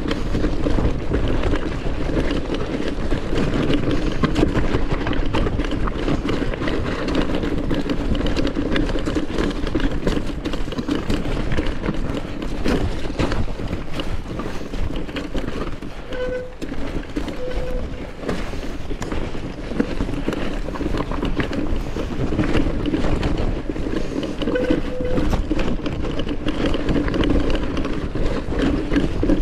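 Mountain bike riding down a rough, rocky and muddy trail: a constant clatter and rattle of the bike over loose stones, with tyre rumble and wind noise on the camera microphone.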